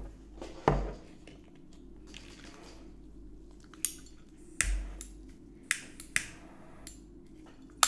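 A small glass alcohol lamp is set down on a table with a knock. Then come scattered sharp clicks and taps as a lighter is handled and flicked to light its wick.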